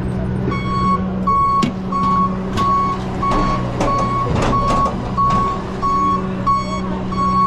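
A truck's reversing alarm beeping steadily, about one and a half beeps a second, over the steady hum of its idling engine.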